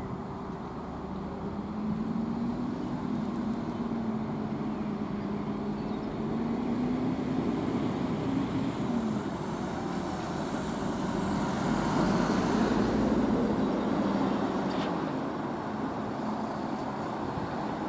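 Emergency vehicles driving past in convoy: engines and tyres on the road, loudest as one passes close about twelve seconds in, with a MAN truck pulling round near the end.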